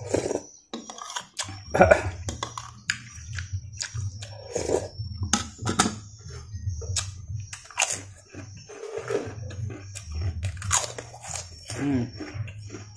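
Close-up sounds of a man eating rawon beef soup with rice: chewing and mouth smacks, with many short sharp clicks, and a low hum beneath.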